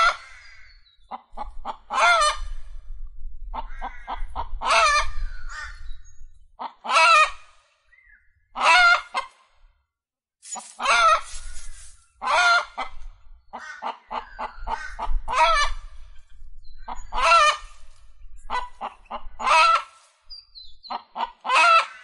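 Chicken alarm call: a run of short clucks rising into a loud, drawn-out squawk, repeated about every two seconds, the cry chickens give to warn the flock of danger.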